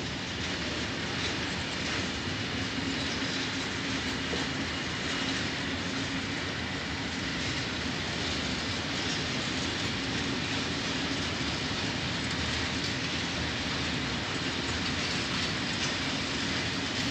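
Container freight wagons rolling past on the rails, a steady noise of wheels running on track.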